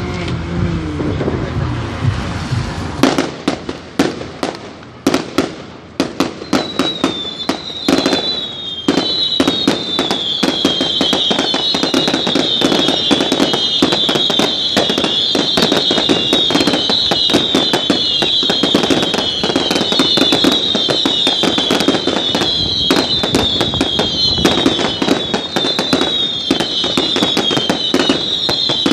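Fireworks going off: scattered sharp bangs that thicken into a dense, continuous crackle about nine seconds in. From about six seconds in, a falling whistle repeats about once a second over the crackle.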